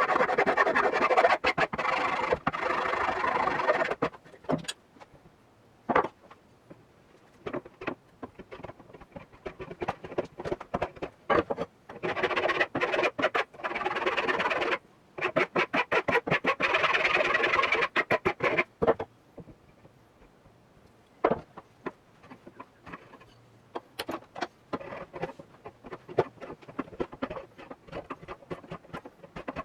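Hand scrubbing on the rusty hand-forged iron pick-hoe with an abrasive hand tool: spells of rapid scraping strokes, with pauses broken by occasional single knocks.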